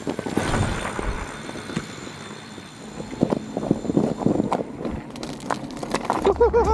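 Fat bike tyres rolling over packed snow and thin ice, crunching and crackling, with wind on the microphone. Near the end, a few short rising-and-falling tones begin.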